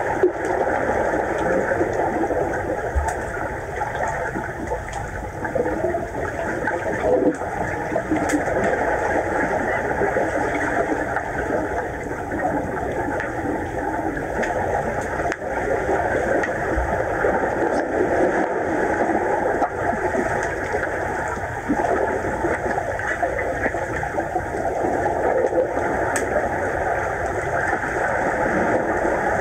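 Underwater swimming-pool sound picked up by a submerged camera: a steady rushing, churning water noise, with a few faint clicks.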